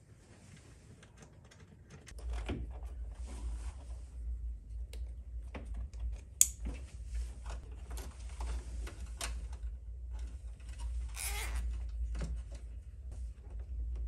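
Irregular small clicks, taps and rustles of hands working wiring, plastic cable clamps and a screwdriver in a pickup's engine bay. There is one sharp click about six seconds in and a brief scrape near eleven seconds. A low steady rumble sets in about two seconds in.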